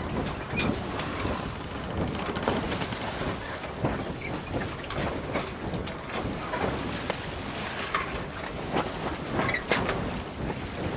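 Close handling noise of coin packaging: cardboard boxes and a presentation case rubbed, slid and turned over by a bare and a cotton-gloved hand, with frequent small clicks and taps over a steady background hiss.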